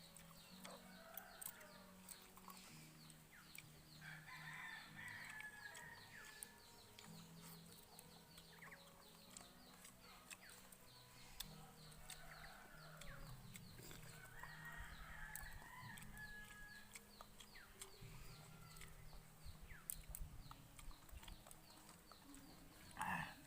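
Faint chickens in the background: hens clucking and a rooster crowing, with scattered small clicks and a short louder sound near the end.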